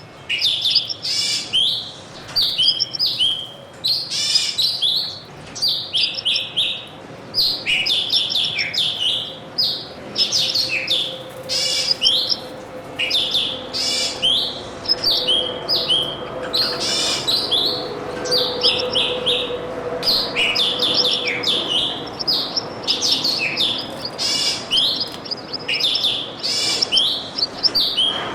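Small birds chirping busily, short high calls repeating several times a second and overlapping, with no let-up.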